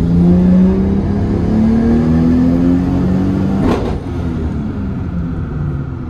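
Toyota Supra's sequentially turbocharged 2JZ-GTE inline-six under full load on a chassis dyno, heard from inside the car, its note rising with the revs. About three and a half seconds in there is a sharp crack, after which the engine note falls and is quieter. The car is pulling on only partial boost because some of its sequential-turbo actuators are not working.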